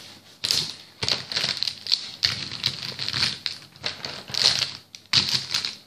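Felt-tip markers rattling and clicking against each other as a hand rummages through them, in a string of short, irregular clattering bursts.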